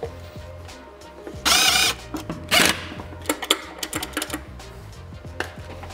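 Makita cordless drill running in a short burst about one and a half seconds in, driving a screw into a switch box on the lathe stand, with a second, shorter burst a second later and a few light clicks and knocks.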